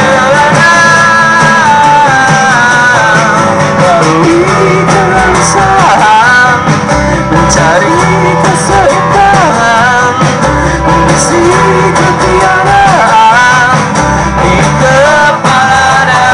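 Live indie pop-rock band playing a song, with a singer over guitars, bass and drums.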